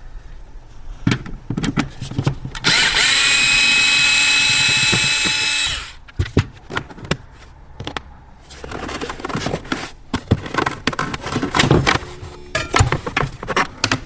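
Small cordless electric screwdriver running for about three seconds with a steady whine, undoing the Phillips screw that holds a plastic footwell speaker grille cover. Before and after it come scattered clicks and knocks of the plastic cover being worked loose and handled.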